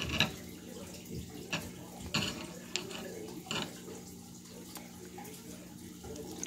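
Wet mouth smacks and sticky clicks from handling and eating sauce-covered barbecue chicken wings: half a dozen short, sharp sounds about a second apart. A steady low hum runs underneath.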